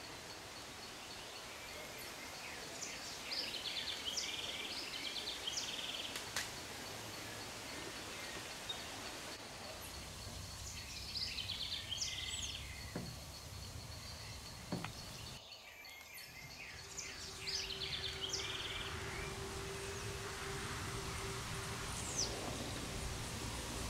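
Outdoor ambience with a songbird singing short phrases of quick rising and falling notes, three times at intervals of about seven seconds. A high, even, pulsing tone runs under the first ten seconds or so.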